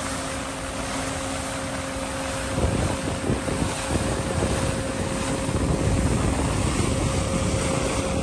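Wind buffeting the microphone over the rush of sea water from a ship under way, with a steady low hum. About two and a half seconds in, the wind noise grows louder and gustier.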